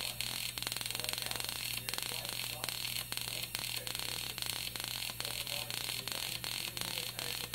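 A spark plug used as a high-voltage spark gap firing at 60 Hz, a steady rapid crackling buzz of sparks, each spark switching a capacitor discharge through a transformer. A steady low hum runs under it.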